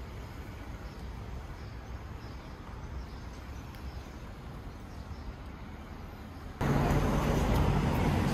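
Quiet outdoor city ambience with a low background rumble. About six and a half seconds in it jumps abruptly to much louder street noise: a vehicle engine's steady hum and people talking.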